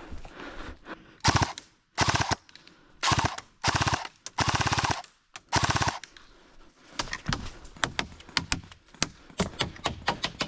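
Airsoft gun firing six short full-auto bursts, each a rapid rattle of shots lasting well under a second, followed by scattered single sharp cracks over the last few seconds.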